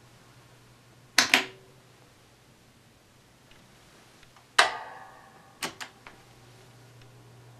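A Panasonic oscillating fan's failing motor giving a low steady hum, with no sound of the blades moving air. Sharp clacks cut through it: a double clack about a second in, a louder one with a brief metallic ring about four and a half seconds in, and two quick ones just after.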